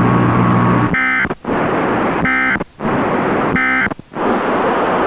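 Emergency Alert System end-of-message data tones: three short buzzing bursts of digital data, each about a third of a second, a little over a second apart, marking the end of the alert. They sit over a steady radio hiss, and a low hum stops about a second in.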